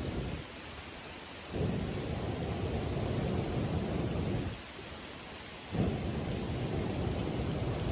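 Low rumbling blasts of air hitting the microphone, each lasting about three seconds and cutting off abruptly, with pauses of about a second between them.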